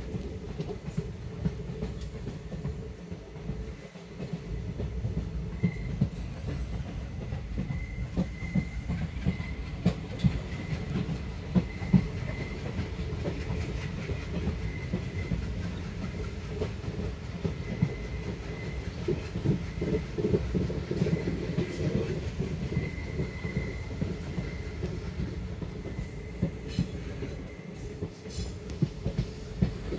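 Express passenger train running at speed, heard from an open coach doorway: a steady rumble of wheels on rail with frequent sharp clicks, and a faint high whine that comes and goes.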